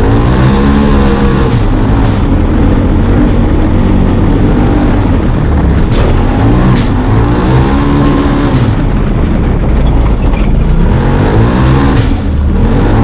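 Side-by-side UTV engine racing at high revs, pitch climbing as the driver accelerates and dropping back when he lifts, three times. Occasional sharp knocks break through the engine.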